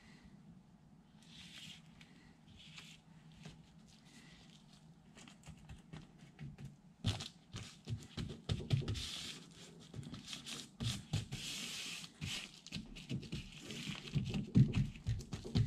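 A sheet of door water-shield material rustling and crinkling as it is handled and pressed flat against the door by hand. It grows louder and busier about halfway through, with a run of low thumps near the end.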